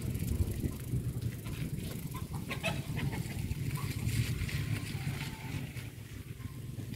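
Steady low rumble of a bicycle ride, with chickens clucking in the background.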